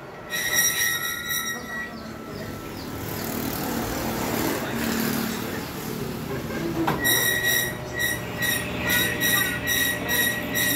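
Metal lathe running during a thread-cutting pass on a metal tube, the threading tool squealing on the metal. The squeal sounds briefly at the start, gives way to a rougher cutting noise, then comes back about seven seconds in as a rapid stuttering squeal.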